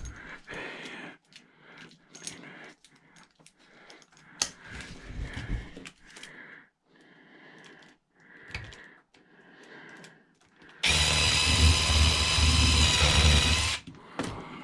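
Small metal clinks and scrapes of hand work, then a power drill runs loud and steady for about three seconds before stopping suddenly.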